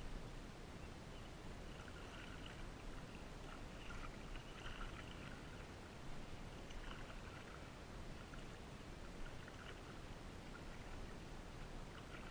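Kayak paddling: the paddle blade dipping into the lake, with water splashing and trickling off it about every two seconds.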